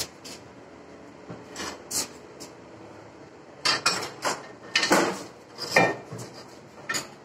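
Stone countertop slab being shifted and set on the base cabinets: irregular short knocks and scrapes of stone, coming thicker in the second half.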